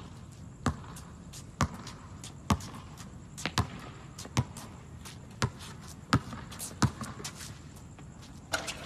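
Basketball being dribbled on an outdoor hard court: about nine sharp bounces, roughly one a second, with an uneven rhythm.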